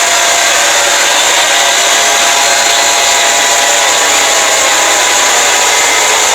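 Fake emergency alert alarm sound made deliberately over-loud: a steady, harsh wall of noise with faint steady tones buried inside it.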